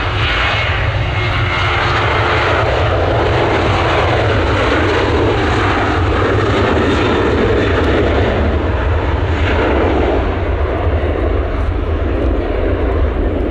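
Boeing 737's twin turbofan engines at takeoff power during the takeoff roll: a loud, steady rushing noise with a deep rumble underneath.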